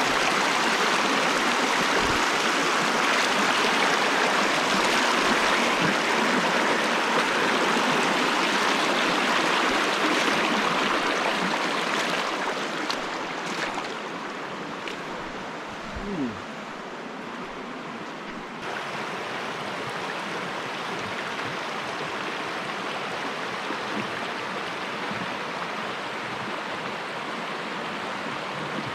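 Creek swollen with snowmelt rushing over rocks, a steady wash of water noise that drops noticeably in loudness about halfway through.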